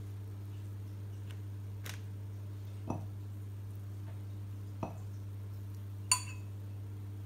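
Hands scattering flaked tuna over a pizza: two soft taps, then, near the end, one sharp clink of dishware with a brief ring, over a steady low hum.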